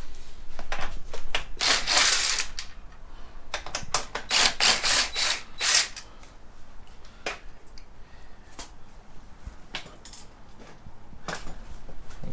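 Hand tools working on a motorcycle's metal frame: a run of sharp clicks and short clattering bursts, loudest about two seconds in and again from about four to six seconds, as the last subframe bolts are loosened and the subframe is freed.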